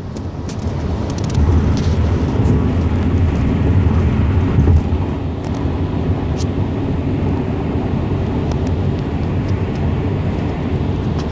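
Steady low rumble of a moving car heard from inside the cabin, engine and tyre road noise, swelling a little about a second in.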